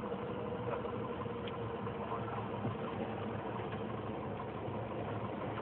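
Cessna 150's Continental O-200 engine and propeller at idle during the landing rollout, running steadily and heard from inside the cabin.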